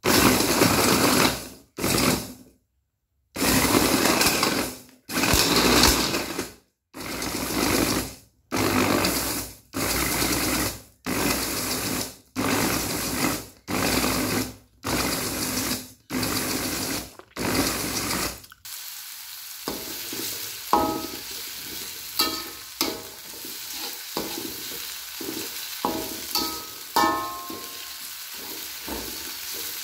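Electric mini food chopper pulsed in about a dozen short bursts, its motor and blade whirring as it grinds a spice paste of garlic, shallots, chillies, ginger, turmeric, galangal and shrimp paste. About two-thirds of the way through it gives way to the paste sizzling in an aluminium wok, with a metal spatula scraping and clicking against the pan as it is stirred.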